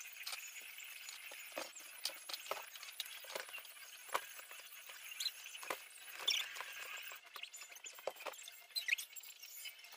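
Small plastic building bricks clicking and tapping as they are picked up, set down and pressed together: a dozen or so sharp, irregularly spaced clicks.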